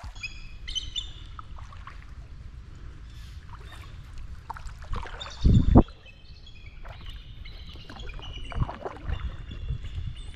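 Small birds chirping in short high calls over a steady low rumble, with one brief loud low thump about five and a half seconds in.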